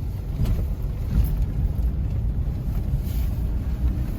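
Steady low rumble of a car on the move, heard from inside the cabin: engine and tyres on a snow-covered street.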